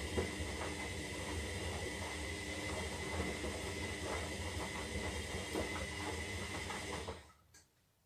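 Zanussi Lindo 300 washing machine running its synthetic wash cycle: a steady motor hum with a high whine and irregular small knocks from the turning drum, which cuts off about seven seconds in, followed by a single faint click.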